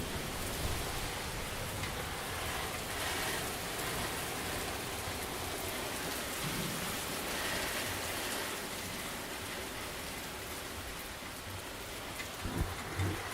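Steady rain falling on a surface, with a few low thuds near the end.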